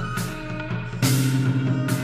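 Instrumental closing music: drums and cymbal crashes over held notes and a steady bass line.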